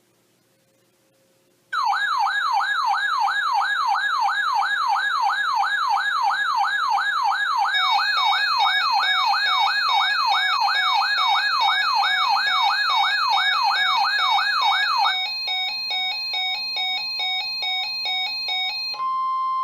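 Synthesized emergency alert tone: a siren-like electronic warble sweeping up and down about three times a second, starting about two seconds in, with stepped electronic tones joining partway through. It then changes to a pulsing, stepped pattern and ends on a short steady beep.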